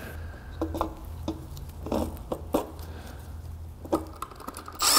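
Light scattered clicks and taps of a throttle body being handled and fitted onto an aluminium intake manifold, over a steady low hum. A sudden loud rush of noise starts at the very end.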